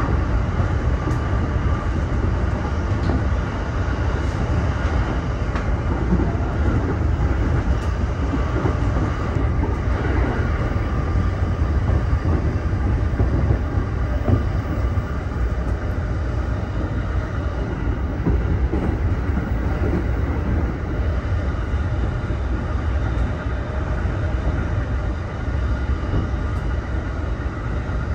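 JR East E231 series electric train running steadily, a continuous low rumble of wheels on rail.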